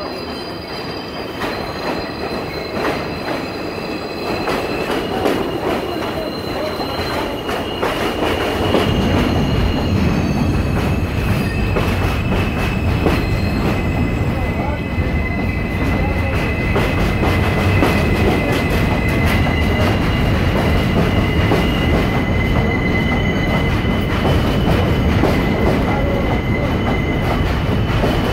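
New York City Subway train on elevated track, its wheels squealing in several high, held tones that shift in pitch. The rumble of the train grows louder about eight seconds in as it comes close.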